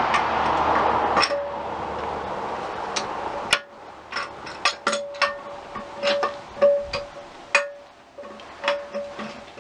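A rush of noise for about the first second, then irregular sharp metallic taps and clinks, many ringing briefly at the same pitch, as metal engine parts are tapped and handled.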